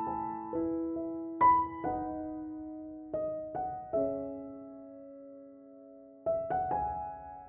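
Slow, gentle piano music: single notes and chords struck and left to ring out, with a long fading chord in the middle.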